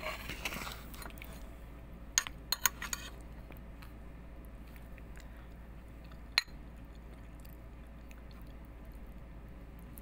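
Eating at a table: a quick run of about five sharp clicks and taps, like a utensil on a dish, a couple of seconds in, and one more sharp click a few seconds later, over a low steady hum.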